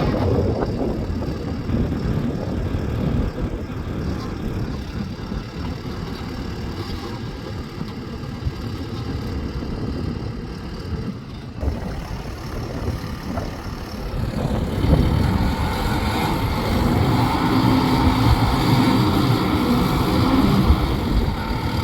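Engine running with a steady rumble, getting louder about 15 seconds in.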